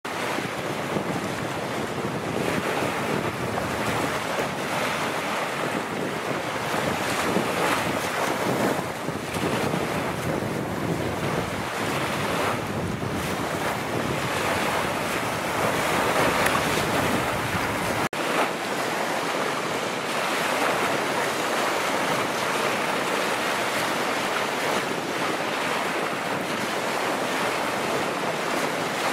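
Wind blowing across the microphone over choppy open water, with waves washing; a steady rush of noise, broken by a momentary dropout a little past the middle.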